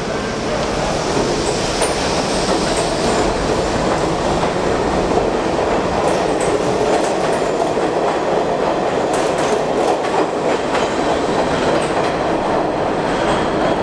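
R68A subway train pulling out of an underground station, a loud, steady rumble of the cars passing with the wheels clattering over the rail joints.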